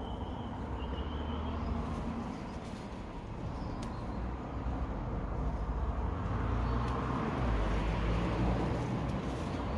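Road traffic noise, a steady rumble that swells louder in the second half as a vehicle passes, with a short high chirp at the start.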